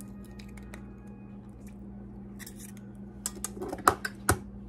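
Eggs being cracked into cake mix: a few sharp taps and clicks of eggshell against a stainless steel mixer bowl, bunched about three seconds in, the loudest two near the end, over a steady low hum.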